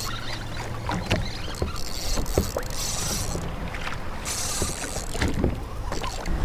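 Sea water slapping against a fishing kayak's hull, with scattered knocks and clicks. Two spells of high hiss come in, a couple of seconds in and again past the middle.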